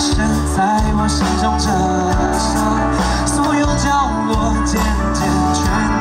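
Live pop-rock band playing, amplified through a PA: a male singer sings over electric guitars, drums and keyboard.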